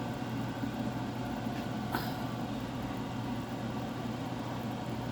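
Steady machine hum, like a kitchen appliance or fan running, with one light click about two seconds in.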